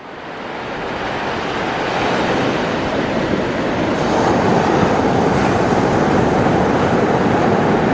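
Ocean surf rushing steadily, fading in over the first couple of seconds.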